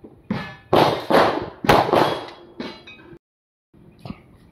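Semi-automatic pistol fired rapidly, five or six shots in under three seconds, some followed by the high ring of steel plate targets being hit.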